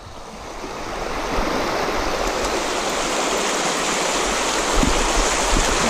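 Shallow river riffle rushing over stones: a steady wash of moving water close to the microphone, fading up over the first second.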